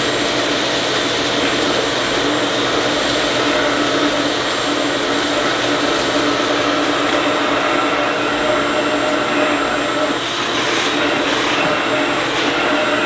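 Ridgid shop vac running steadily with a loud whooshing roar of suction, drawing sawdust up the hose into a cyclone dust separator. A faint rattle of chips passing through the hose comes in during the last few seconds.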